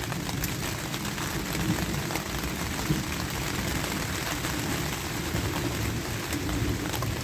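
Steady rain falling hard, with many drops ticking on the tarp awning overhead and a low rumble underneath.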